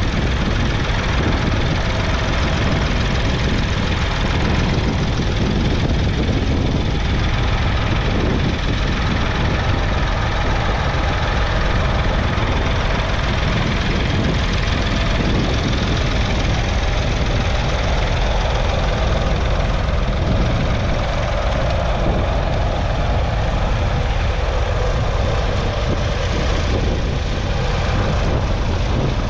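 The David Brown 770 Selectamatic's 2.4-litre three-cylinder diesel engine running steadily under load while the tractor pulls a two-furrow mounted plough through the soil.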